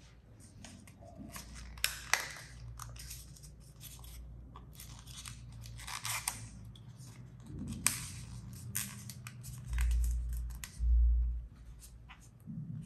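A paper dollar bill crinkling and rustling as it is folded and creased by hand, with a few sharp crisp snaps as folds are pressed. Two dull low thumps come near the end.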